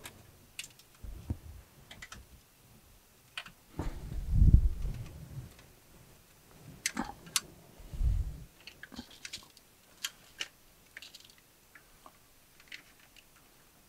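Scattered small clicks and rustles of wiring being handled as harness connectors are pushed onto an HEI distributor, with a few dull low thumps, the loudest about four seconds in.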